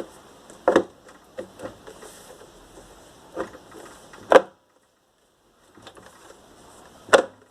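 Air fryer's plastic housing being handled and fitted back together: a few sharp knocks and clicks, the loudest about four seconds in and near the end, with a brief dead silence just after the middle.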